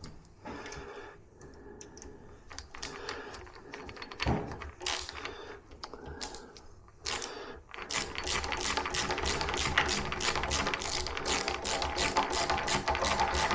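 Tools and metal lock parts being handled on a door, with scattered clicks and knocks. About eight seconds in, a steady rapid mechanical rattle of fast clicks starts and keeps going.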